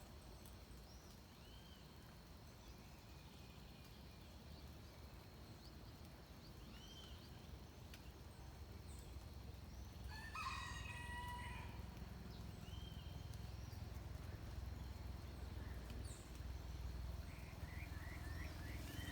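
A rooster crowing once, about ten seconds in, a faint call of about a second and a half. Short, scattered bird chirps around it, a quick run of chirps near the end, and a low steady rumble underneath.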